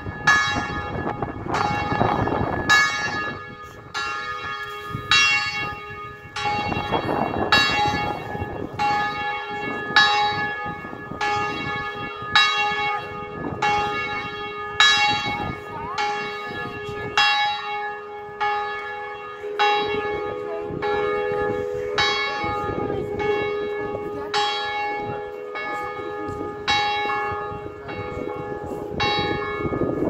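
Liverpool Metropolitan Cathedral's tower bells ringing, several bells of different pitch struck one after another in a steady, quick rhythm, each stroke ringing on into the next.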